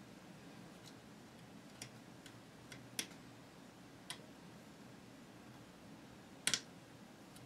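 Small, sharp clicks of a tiny metal C-clip being pushed off a plastic rear sight on a rifle barrel: about six scattered clicks, the loudest a quick double click near the end.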